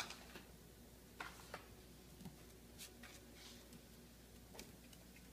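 Near silence with a few faint, irregular clicks: a small dog's claws tapping on a tile floor as it shuffles and stands on its hind legs.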